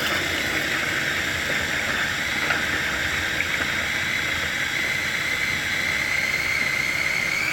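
Small electric food chopper running continuously on its chop setting, its motor and blade whining steadily as it chops green bell pepper, onion and garlic. The whine rises slightly in pitch near the end.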